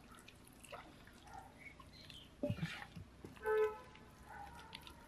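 Bare hands squeezing and rubbing a thick masala paste into a whole raw chicken in a steel bowl: faint wet squelching and small clicks. A brief voice-like sound comes about two and a half seconds in, and a short, steady-pitched call about a second later is the loudest sound.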